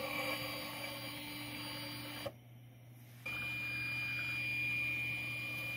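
Stepper motor driving a model railway turntable through a GT2 belt and pulley, running with a steady high-pitched whine over a low hum. The sound drops away for about a second, two seconds in, then resumes with the high whine stronger.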